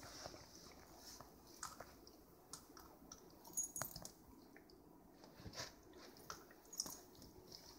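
Keeshond puppy licking and gnawing an ice cube: faint, scattered clicks and mouth sounds of teeth and tongue on the ice, a handful of them a second or so apart.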